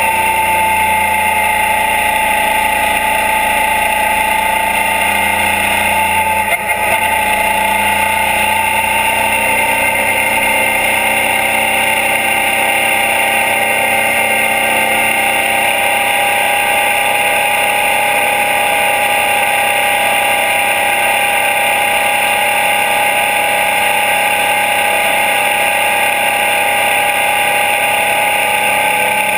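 Suzuki DL650 V-Strom's 645 cc V-twin engine running at steady cruising speed, heard from right beside the engine with wind and road noise. Its note eases slightly lower over the stretch, with one brief dip about six or seven seconds in.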